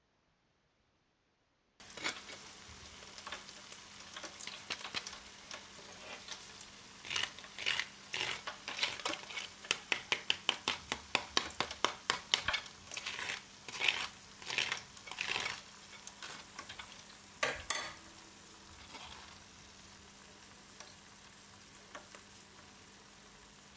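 A metal spoon tapping and pressing the crisp breaded crust of freshly fried chicken in a wire-mesh fry basket: a run of sharp crunchy crackles that start about two seconds in, come fastest through the middle at about three or four a second, with one louder crack a little later, then thin out. The crunch is the sign of a crisp, well-fried outer coating.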